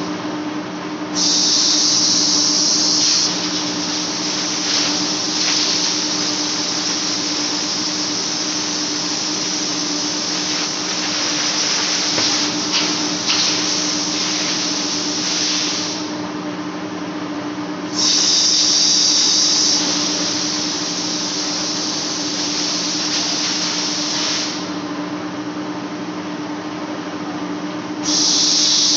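Large lathe facing a steel flange: a steady drive hum under a high, hissing cutting noise from the tool on the flange face, which swells loud for a second or two about a second in, again about two-thirds of the way through, and near the end.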